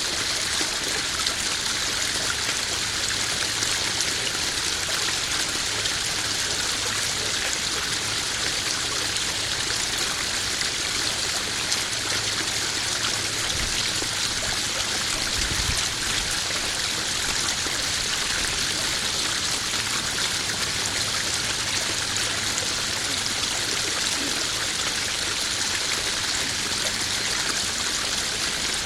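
Small garden waterfall spilling into a koi pond: steady splashing and trickling water. A faint low thump comes about halfway through.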